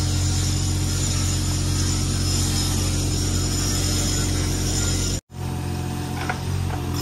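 Hitachi mini excavator's diesel engine running steadily with a low, even hum. The sound drops out for a split second about five seconds in, and a faint click or two follows soon after.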